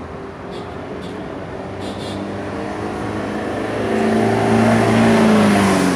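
Motor vehicle engine approaching and passing close by on the road, growing steadily louder to a peak about five seconds in, then easing off slightly.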